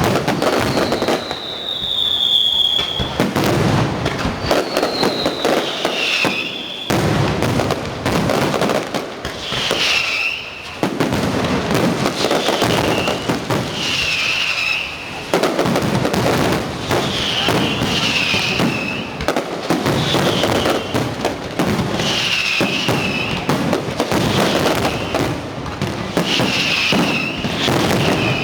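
Fireworks display: dense, continuous bursts and crackling of shells, with high whistles falling in pitch every two seconds or so.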